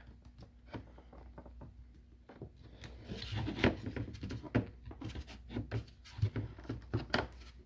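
A flathead screwdriver prying at a door speaker's glued plastic mount. It makes irregular scraping, clicking and creaking as the glue is broken, getting busier after about two and a half seconds.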